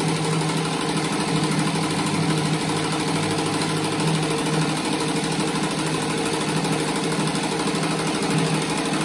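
Industrial sewing machine running steadily, stitching around the edge of a patchwork rag rug, a continuous even hum.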